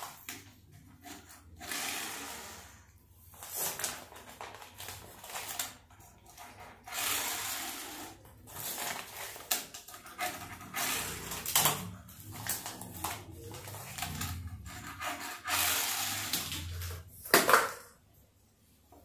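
Handling noises: plastic toy packaging rustling in uneven stretches while small toy cars are set down on a table, with one sharper knock near the end.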